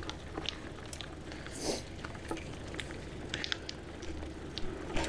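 Bicycle rolling along a dirt forest trail: tyres crunching over the packed earth with scattered light clicks and rattles, over a low steady rumble, and a brief hiss a little under two seconds in.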